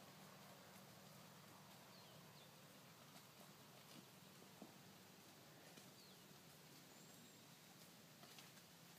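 Near silence: faint outdoor ambience with a few brief bird chirps.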